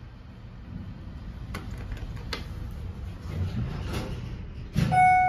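Elevator car doors sliding shut with a low rumble and a few light clicks. Near the end comes a bump as they close, followed by a ringing chime that fades slowly.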